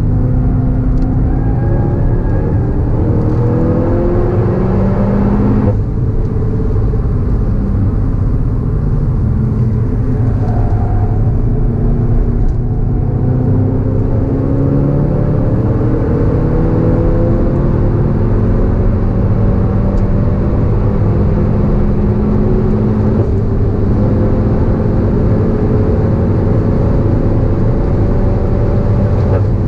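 VW Golf GTI Clubsport S's turbocharged 2.0-litre four-cylinder engine pulling hard through the gears on track. Its pitch climbs steadily and drops back at upshifts about six seconds in, around twelve seconds and about twenty-three seconds in, over a constant loud low rumble.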